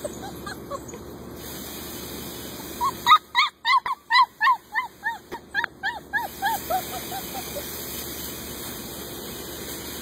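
An animal calling: a quick run of about twenty short, rising-and-falling calls, about four a second, that grow fainter and lower in pitch near the end.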